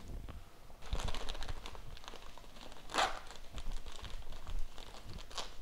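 Packaging rustling and crinkling as hands handle a bag of specialty brewing grains inside a cardboard box, with one sharper crackle about three seconds in.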